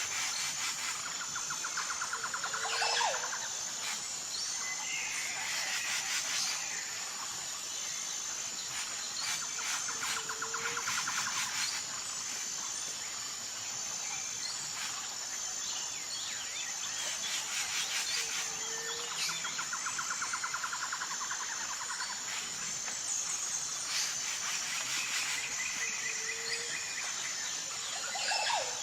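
Jungle ambience: a steady high-pitched insect chorus with a regular pulsing trill runs throughout. Over it, a group of bird calls (a rapid rattling trill, a short low note and a higher call) comes back about every eight seconds, four times.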